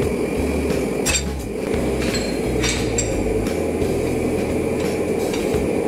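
Hammer blows on a steel marking stamp held on hot iron on an anvil: a few separate sharp metallic strikes, with pauses between them.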